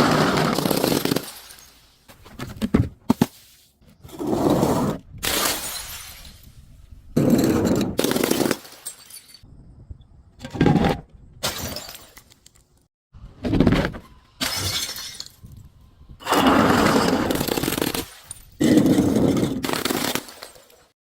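Glass bottles breaking and crunching under crushing in a series of about ten separate bursts, some short and sharp, others a longer grinding crunch of a second or two.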